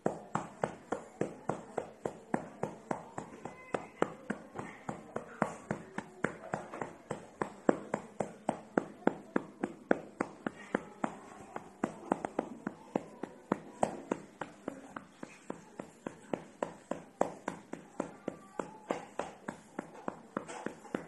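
An adult's hand patting a sleeping baby in a steady rhythm, about three pats a second.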